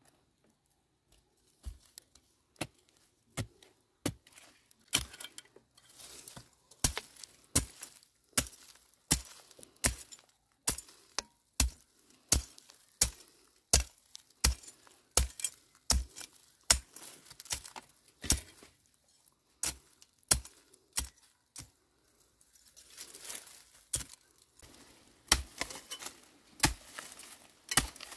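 A blade chopping again and again, one sharp strike after another about once or twice a second, with a short break about two thirds of the way through.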